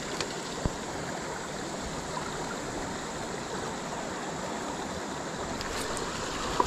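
Creek water running over rocks in a steady rush, with a couple of light clicks in the first second.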